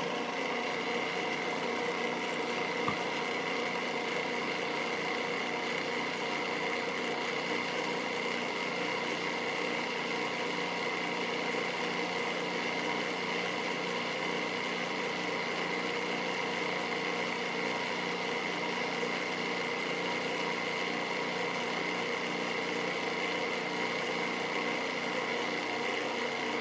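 Machine spindle running with a steady whine of several fixed tones while a 7/16-inch end mill plunges to cut out the corner of a pocket.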